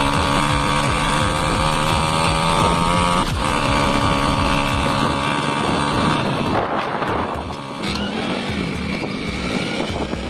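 Restored Yamaha Chappy's two-stroke single-cylinder engine running, its pitch shifting a few times as it is revved.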